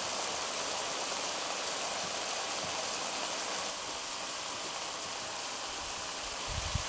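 Pheasant and vegetable stir-fry sizzling steadily in a cast-iron skillet.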